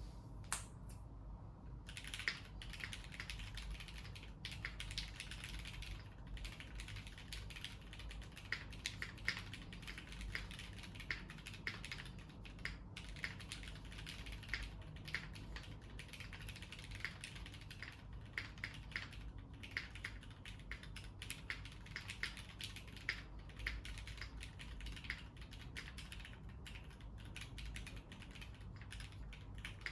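Typing on a Keychron Q3 mechanical keyboard with lubed and filmed Cherry MX Red linear switches, a steel plate and PBT keycaps: a fast, steady run of soft key clacks with short pauses, damped by plate and case foam.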